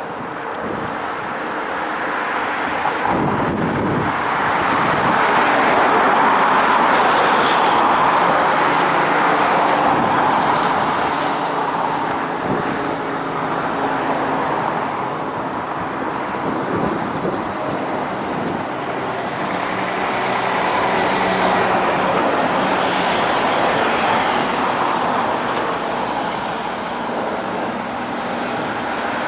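Road traffic passing: car tyre and engine noise that swells and fades as vehicles go by, loudest twice.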